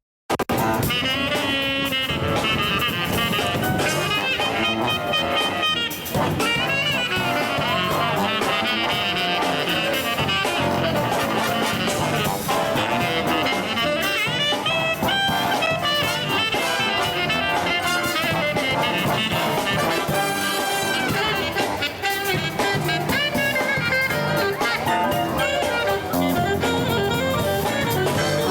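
Up-tempo jazzy music led by brass (trumpets and trombones), playing throughout after a momentary dropout at the very start.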